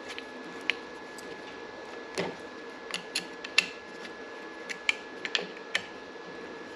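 Irregular clicks and light knocks from parts being handled and pressed while a heated grip is worked onto a motorcycle handlebar, over a faint steady hum.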